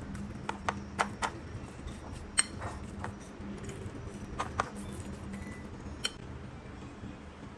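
Metal fork clinking and scraping against a ceramic plate while mixing minced pork with diced carrot and garlic: about ten sharp, irregular clinks, the loudest about two and a half seconds in, over a faint steady hum.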